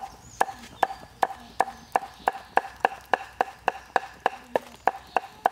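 Steel cleaver chopping rapidly on a round wooden chopping board, about three strokes a second, mincing food. Each stroke is a sharp knock with a short metallic ring from the blade.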